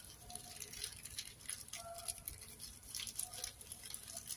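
Faint, irregular rustling and crinkling of white rice-wrapping paper as it is folded by hand into a packet.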